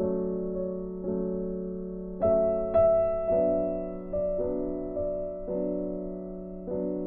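Background piano music: soft chords struck about once a second, each fading before the next.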